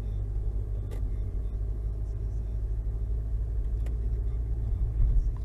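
Steady low rumble of a car's engine and tyres, heard from inside the cabin while driving slowly, with a couple of faint clicks and a brief louder bump near the end.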